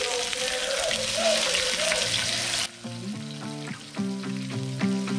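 Fish fillets sizzling as they fry in oil in a pan. The sizzling stops suddenly about halfway through, leaving background music with a regular beat.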